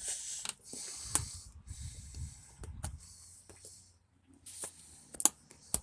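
Bursts of hissing noise, each about half a second to a second long, with a few sharp clicks, while a glass shard is being picked out of a tyre.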